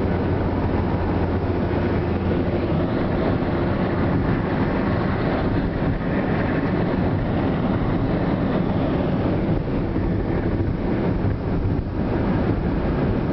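Steady road and wind noise in a car's cabin at autobahn speed, with the engine running underneath.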